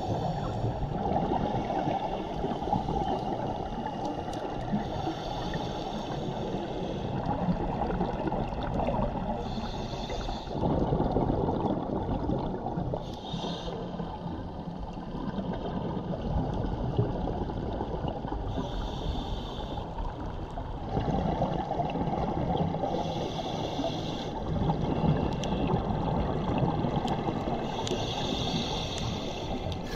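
Scuba breathing heard underwater: exhaled bubbles from the regulator gurgle out in bursts every four to five seconds over a steady underwater rush.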